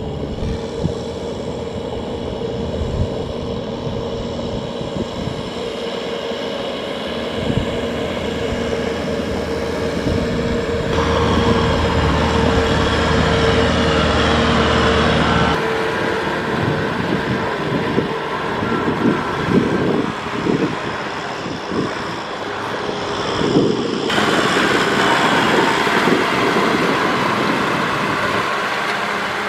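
Kubota M6040 tractor's diesel engine running steadily under load, pulling a trailer loaded with rice sacks through mud. The sound changes abruptly three times.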